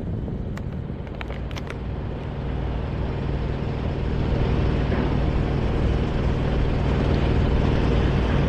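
Heavy diesel engine running steadily and growing gradually louder, with a few light clicks about a second in.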